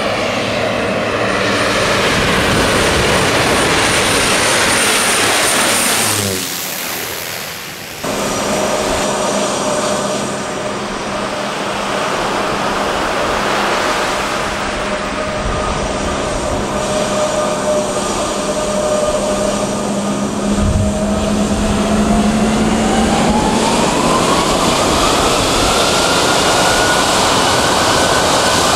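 Twin-engine airliner's jet engines running with a steady whine over a broad rush, briefly dropping away about six seconds in. From about twenty-three seconds in, the whine rises in pitch and then holds higher as the engines spool up for takeoff.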